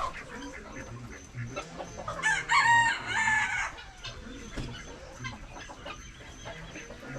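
A rooster crowing once, a long pitched call starting about two seconds in, over chickens clucking.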